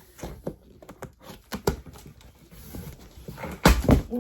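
A cardboard box and its packaging being handled and opened: irregular taps, knocks and scrapes, with a louder run of thumps and rustling near the end.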